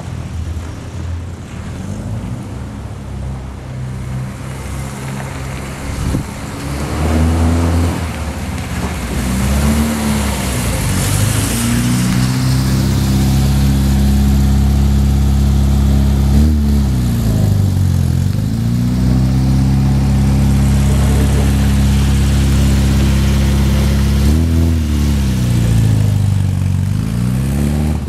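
1966 Triumph Spitfire Mk2's four-cylinder engine pulling the car through the gears, its pitch climbing and dropping back several times, louder from partway through as it comes closer. It runs smoothly on all four cylinders, with the misfire gone now that the crossed spark-plug leads on cylinders two and three are back in the 1-3-4-2 firing order.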